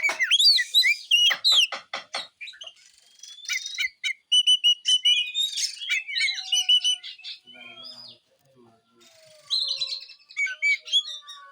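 Oriental magpie-robin (kacer) singing a varied song of whistled glides, fast repeated chirps and short repeated notes, broken by brief pauses.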